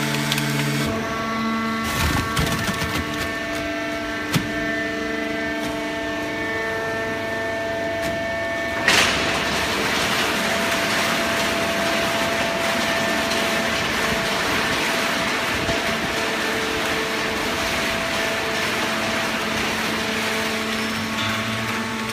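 Hydraulic baling machine for corrugated cardboard running with a steady mechanical hum. A few knocks come early on, then a loud bang about nine seconds in, after which a steady rushing noise continues.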